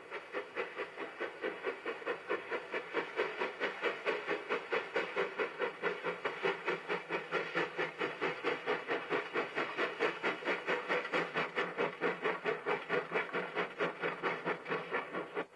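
NSWGR 50 class 2-8-0 steam locomotive No. 5069 working its train, its exhaust chuffing evenly at about four to five beats a second with steam hiss. The chuffing cuts off suddenly at the end.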